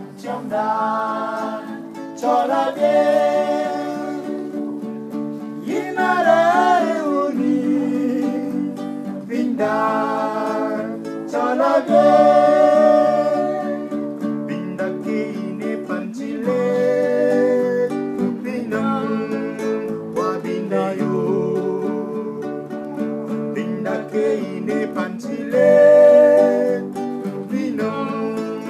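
Male vocals singing a song in phrases of a few seconds, accompanied by a steadily played acoustic guitar.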